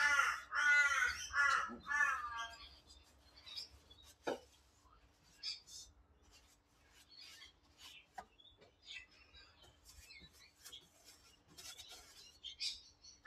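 A crow cawing several times in quick succession for the first couple of seconds. After that come only faint taps and scrapes of brush-painting work, with one sharper knock about four seconds in.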